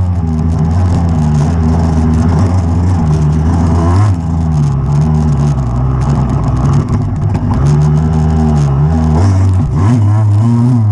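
Off-road motorcycle engine running under load. The note rises and falls as the throttle is worked, easing off about four seconds in and again near the end before picking back up.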